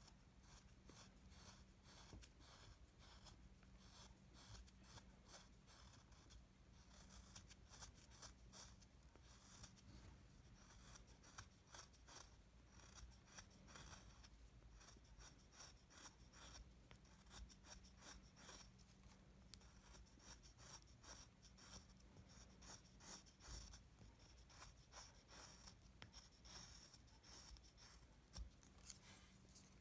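Small carving knife (kogatana) paring a small wooden Jizo figure: many faint, short slicing cuts into the wood in quick succession, with a low steady hum underneath.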